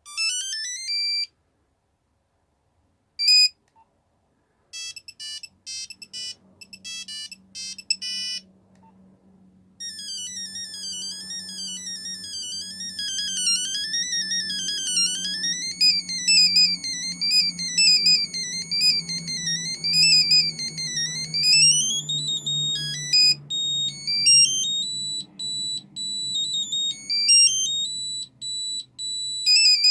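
Nokia 3210 mobile phone playing its built-in monophonic ringtones through its small speaker, one beeping note at a time. A rising chirp and a lone beep come first, then a quick run of notes. From about ten seconds in a fast up-and-down arpeggio tune plays, changing to a different stepped tune near the end, over a faint low hum.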